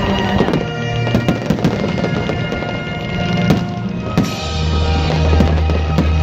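Fireworks display shells bursting and crackling, with many sharp bangs, over loud music that plays throughout; a heavy bass line comes in about four seconds in.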